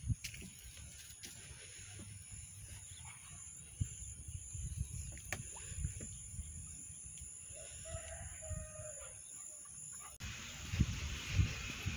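Outdoor ambience on a phone microphone, with low thumps of wind and handling. A rooster crows once, faintly, about eight seconds in. The wind rumble gets louder near the end.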